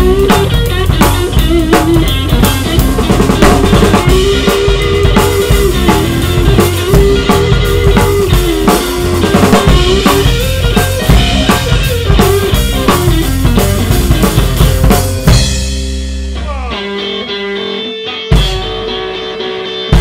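Rock band playing live: a Yamaha drum kit with electric guitar and electric bass in a steady groove. The drums stop about 15 seconds in, leaving the guitars ringing out, with one more hit near the end.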